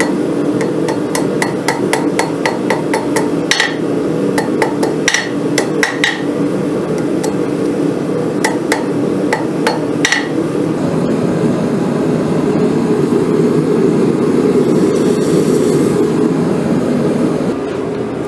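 Hand hammer striking red-hot steel on an anvil while curling the tip of a hook: a run of light, quick taps, then a few heavier ringing blows, stopping about ten seconds in. A steady rushing noise runs underneath and carries on alone after the strikes end.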